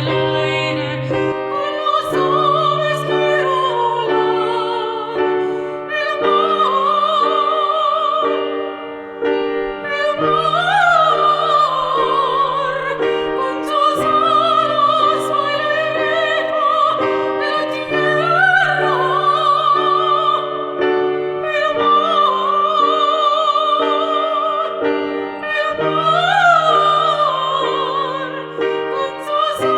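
Female operatic soprano singing a Spanish-language song with strong vibrato over a piano accompaniment of held chords that change about every four seconds.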